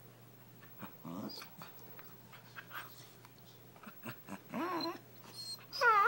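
A corgi vocalizing in short pitched grumbles and whines, a brief one about a second in and a longer one about four and a half seconds in, then a loud, sharp call falling in pitch near the end.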